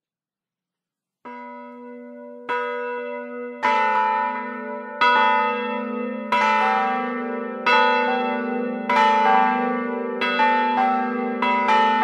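Large bronze church bells ringing. The first stroke comes about a second in, then strokes follow roughly every second and a third, each ringing on under the next. Near the end they come faster and overlap.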